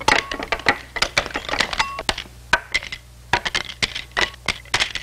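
Hanafuda cards clacking down onto a gaming table in a rapid, irregular flurry of sharp clicks, a few with a short ring.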